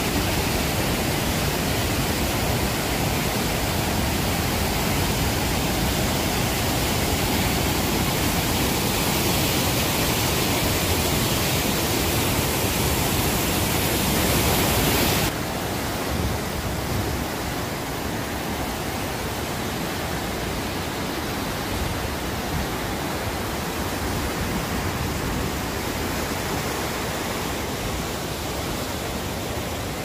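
Rhine Falls' white water rushing as a steady, loud wash of noise. About halfway through it cuts to a quieter, duller rush of the river basin below the falls.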